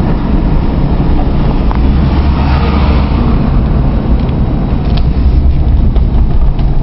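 Car driving, with a steady low engine and road rumble heard from inside the cabin.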